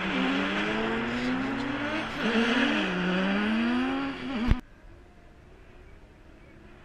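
Race cars' engines revving up and down in several rising and falling pitches as the cars slide through a snow-covered corner. About two-thirds of the way in there is a sharp click, and the engine sound drops abruptly to a faint distant background.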